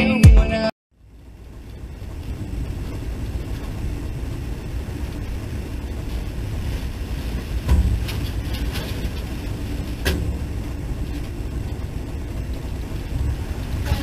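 The tail of electronic intro music, then after a brief silence the steady low rumble of a moving Union Pacific diesel freight locomotive, heard from inside the trailing unit's cab. Two sharp knocks come about 8 and 10 seconds in.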